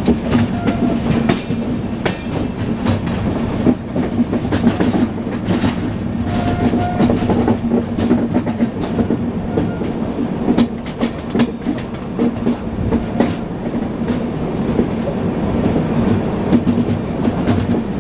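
Passenger train coaches rolling past on a curve, wheels clattering over the rail joints in a steady run of clicks over a continuous rumble.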